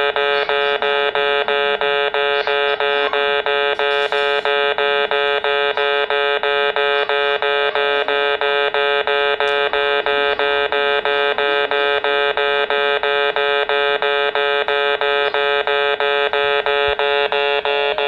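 Kintetsu in-station level crossing warning buzzer sounding its distinctive 'beh-beh' tone: a steady-pitched, reedy buzz pulsed rapidly and evenly, which signals a train approaching the crossing.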